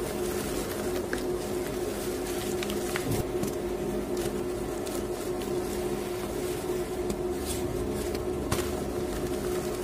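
Steady washing machine hum, with scattered soft crackles as wet gym chalk is crumbled and squeezed by hand over water.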